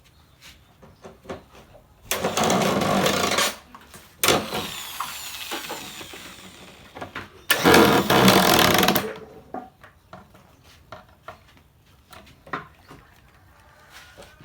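Power drill drilling in three bursts, the middle one slowly winding down, with light knocks and scrapes between.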